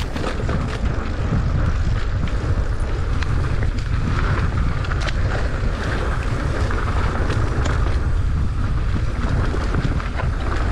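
Wind buffeting the microphone on a fast mountain-bike descent: a loud, steady rumble, with the bike rattling and clicking over rough, loose dirt throughout.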